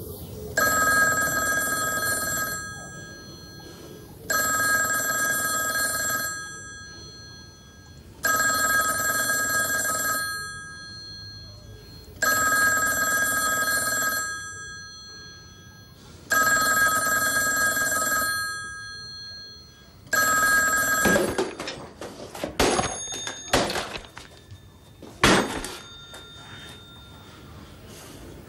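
A telephone ringing: six rings of about two seconds each, one every four seconds, the sixth cut short about 21 seconds in. A run of sharp clicks and knocks follows, the loudest about 25 seconds in.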